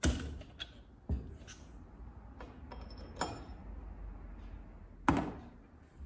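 Handling of metal tooling on a steel bench: a drill chuck being loosened with a chuck key and a tap dropped into an aluminium bit stand, heard as four sharp metal clinks and knocks, the loudest about five seconds in, one with a brief ring.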